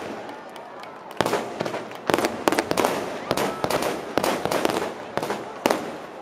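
Aerial firework shells bursting in quick succession: after a quieter first second, sharp bangs come several times a second, with crackling between them.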